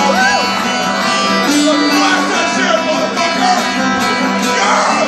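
Music: a slow rock ballad carried by plucked and strummed guitars, in a stretch without sung lyrics.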